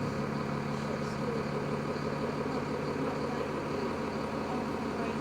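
A vehicle's engine running steadily: a low, even drone with a steady hum.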